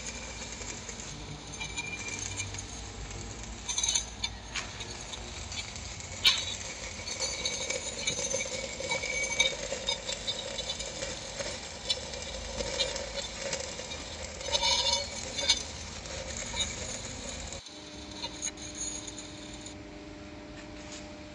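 Manual stick (SMAW) arc welding on a steel pipe: a continuous crackling sizzle of the arc, broken by sharp pops and spatter clicks. About 17 seconds in it cuts off suddenly to a quieter steady hum.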